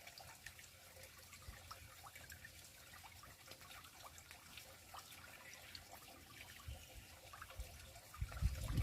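Faint trickle of a small stream flowing into a pond, with many small splashes and drips. Low rumbles come in near the end.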